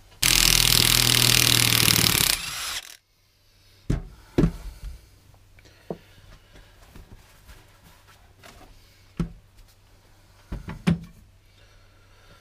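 A loud, steady machine noise, like a power tool or compressed air, runs for about two seconds and then cuts off suddenly. After that come a few scattered knocks and clinks of the steel differential parts being handled and set down on the bench.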